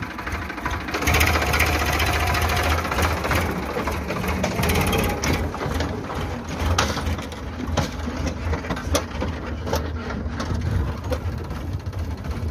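Sonalika DI 745 III tractor's three-cylinder diesel engine running steadily just after starting, as the tractor pulls a loaded trolley away. A low engine hum, with scattered clicks and rattles on top.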